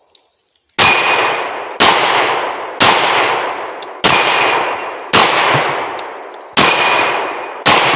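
Pistol shots fired at about one a second, seven in all, starting just under a second in; each sharp report rings on and fades, with the ring of steel targets in the tail.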